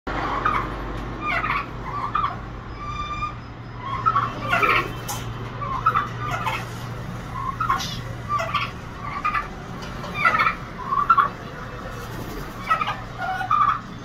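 Cage birds in an aviary calling: short, sharp squawks and chirps every half second or so, with one brief whistled note about three seconds in, over a steady low hum.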